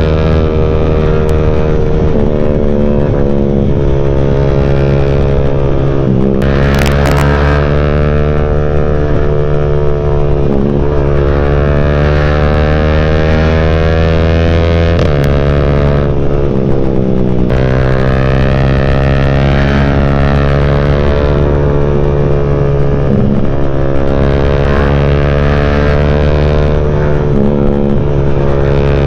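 Yamaha Y15ZR's single-cylinder four-stroke engine through a CJ Ipoh aftermarket exhaust while riding, the revs climbing and dropping back several times as it goes through the gears.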